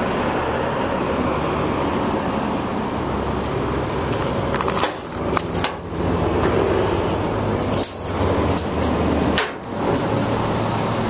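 Steady low engine rumble, with a few sharp short clicks around the middle and near the end.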